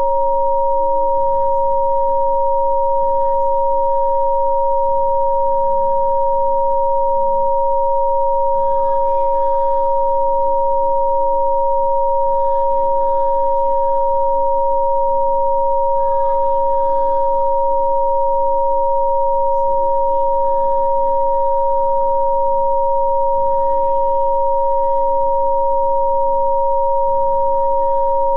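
Two steady electronic sine tones of a Rife frequency-therapy session sound together unchanging, one higher than the other. Faint ambient music sits beneath them, its chords shifting every few seconds.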